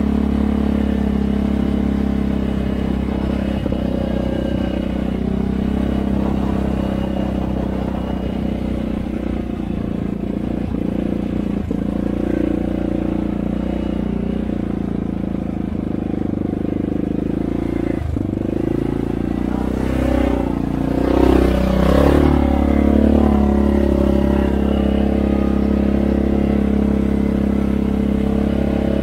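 Four-wheeler engine running steadily, getting briefly louder about 21 seconds in, with a single knock a few seconds before.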